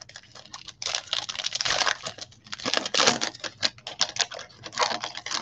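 Trading card packs and cards being handled: foil wrappers crinkling and tearing and cards flicking and sliding against each other, heard as a quick, irregular run of crackles and clicks.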